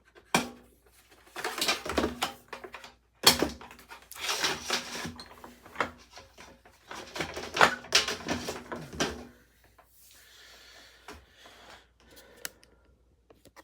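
Irregular knocking, clattering and rattling of hard parts being handled, in bursts for about nine seconds, then a faint hiss with a few light ticks near the end.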